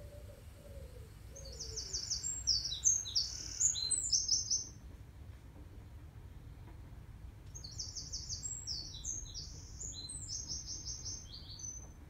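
A small songbird singing two bursts of rapid, high chirping notes, the first one loud from about two seconds in, the second one softer from about halfway.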